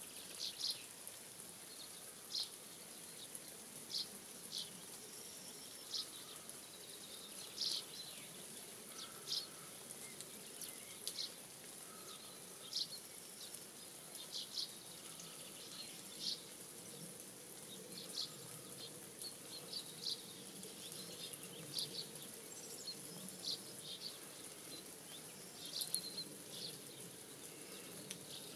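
Small birds calling in short, sharp high chirps, one every second or two, over a steady high-pitched hiss of rural background sound.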